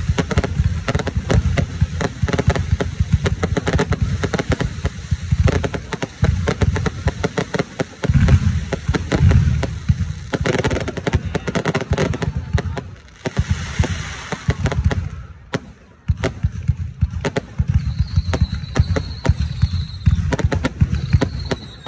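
Aerial fireworks display: a dense run of launch thuds, shell bursts and crackling, overlapping almost without pause. It thins to a brief lull about fifteen seconds in, then picks up again.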